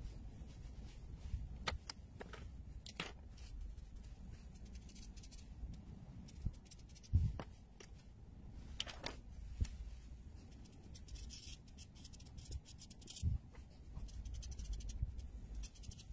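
Felt-tip marker strokes scratching on drawing paper in short, irregular bursts, with a few soft knocks, the loudest about seven seconds in and another near the thirteen-second mark.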